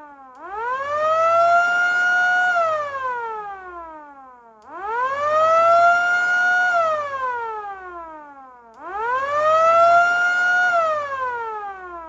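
MS-390 motor siren, run with its motor exposed, winding up three times. Each time it rises to a steady high wail, holds briefly, then falls away in pitch. The last wind-down is still trailing off at the end.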